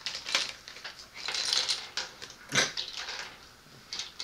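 Small plastic construction-figure pieces clicking and snapping as they are handled and pressed together, the sharpest click about two and a half seconds in, with a short rustle shortly before it.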